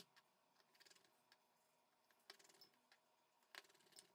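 Faint clicking from a precision screwdriver turning small screws into a phone's plastic midframe cover, in three short bursts of rapid ticks about a second and a half apart.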